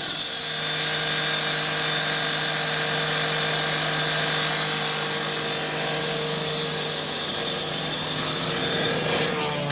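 Power saw cutting water pipes, running steadily with a constant hum.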